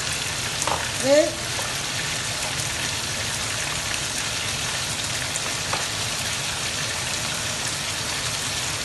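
Pan of fumbwa in palm-oil and peanut sauce simmering on the stove: a steady sizzling hiss with a few small pops.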